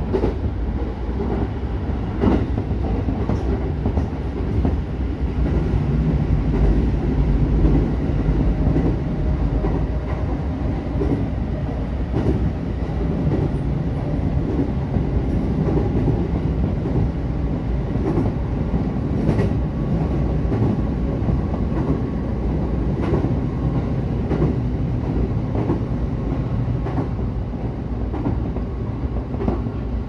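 Running noise of a JR E231-series electric train heard from inside the driver's cab: a steady rumble of wheels on rail, with occasional sharp clacks every few seconds.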